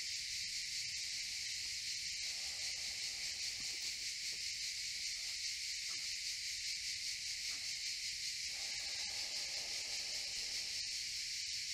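Cicadas buzzing in a steady, unbroken high-pitched drone.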